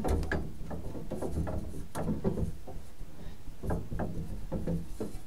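Striking train of an 1885 tower clock turning over, its gears and camshaft giving a run of small irregular clicks and knocks over a low rumble as the strike mechanism works toward the camshaft stop.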